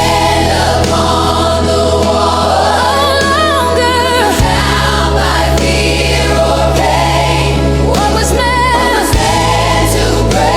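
Gospel worship song with a choir singing. Sung lines waver with vibrato over held bass notes, which change to a new chord twice.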